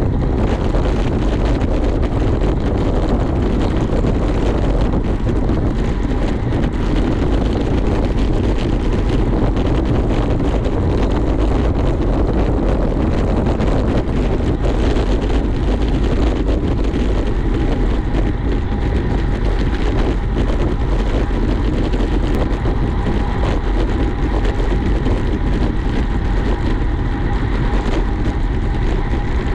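Steady rumble and rush of wind and road noise from travelling, with a faint steady tone coming in a little past halfway.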